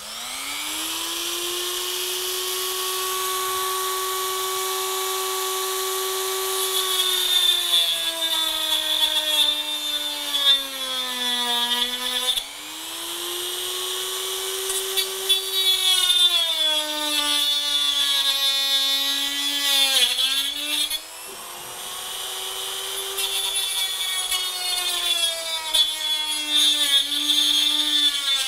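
Dremel rotary tool with a cut-off disc spinning up to a steady high whine, then cutting through a hard resin model-building wall. Under load the motor's pitch sags and the cut turns to a harsh rasping, easing off and bearing down again a couple of times.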